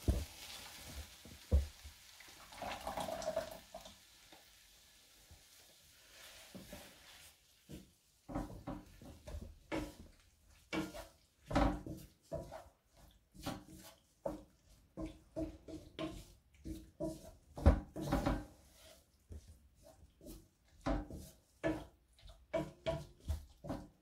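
Passata poured from a bottle into a frying pan of cooking mince, a soft hiss with a couple of knocks. Then, from about eight seconds in, a wooden spoon stirs the thick sauce around the pan in a steady run of wet scraping strokes, about one or two a second.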